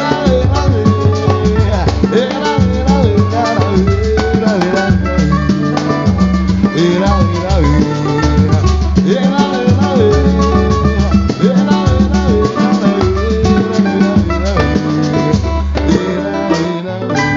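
A samba group playing a pagode song: drums and percussion over a steady low beat, with melodic lines above.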